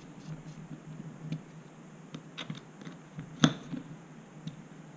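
Small hex screwdriver turning steel screws down into the carbon-fibre top plate of a 5-inch FPV racing frame, giving scattered light clicks and taps, with one sharper click about three and a half seconds in.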